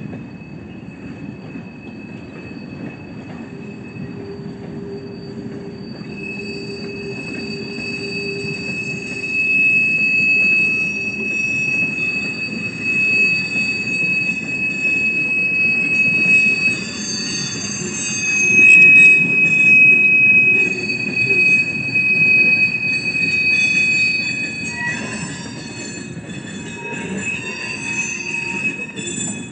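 Empty steel-service flatcars of a long freight train rolling past on a curved wye track. The wheels rumble on the rails, and flange squeal rings as a steady high tone with shorter squeals coming and going, louder through the middle.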